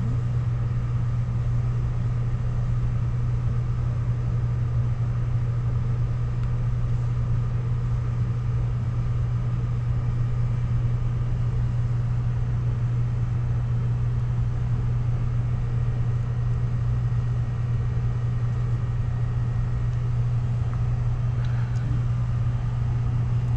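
Steady low-pitched hum of a running machine, unchanging in level and pitch.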